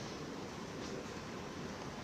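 Steady room tone of a quiet indoor lounge: an even background hiss with a few faint soft ticks.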